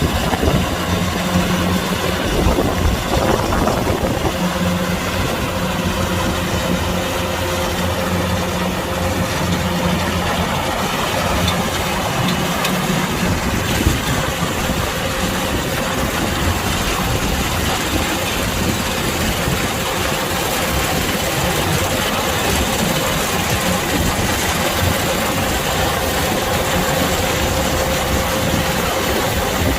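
Kubota DC-105X combine harvester running steadily: a loud, continuous machine din with a low hum that fades about twelve seconds in.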